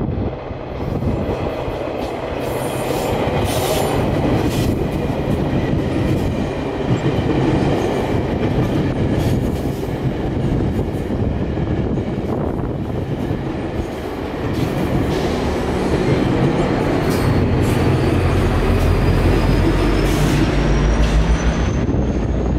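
GO Transit bilevel coaches rolling past with wheels clicking over the rail joints, then the push-pull train's diesel locomotive at the rear comes by and its deep engine drone takes over over the last few seconds, with a high whine rising in pitch.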